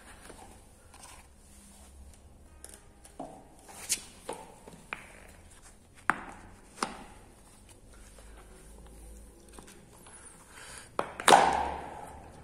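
Punctured soft balls being pulled one by one off a board of upright nails: a scattered series of sharp clicks and knocks, the loudest near the end with a short ringing tail.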